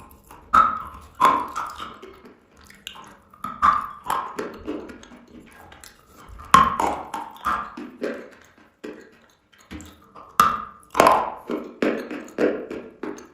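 Close-up wet crunching of chalk being bitten and chewed: a string of sharp crunches coming in bunches, with short pauses between them.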